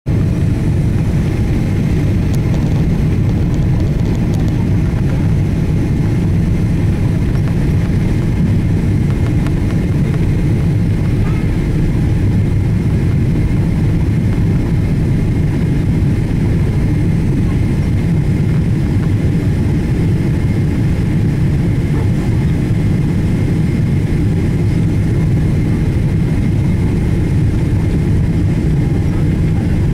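Steady low rumble of jet engine and airflow noise inside a Boeing airliner's cabin on final approach, with a faint steady high whine over it.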